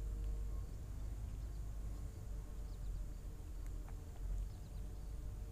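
Low rumble of wind on the microphone, with a few faint, short high bird chirps around the middle.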